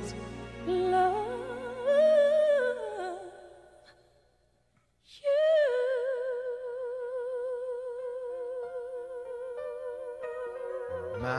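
Slow background music: a single melody line with vibrato, breaking off into near silence about four seconds in, then coming back as one long held note.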